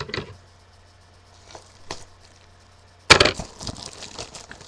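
A small box of baseball cards being torn open by hand: a few handling clicks and knocks, then a loud ripping tear about three seconds in, trailing off into crackling.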